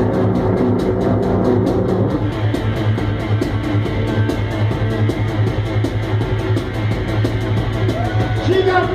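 Live rock band playing an instrumental passage: electric guitar over a drum kit keeping a steady beat and a droning bass. A voice-like gliding tone comes in near the end.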